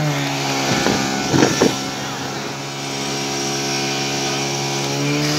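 Portable fire pump engine running steadily at high revs, pumping water into the attack hoses as they fill. A few short knocks come about a second and a half in.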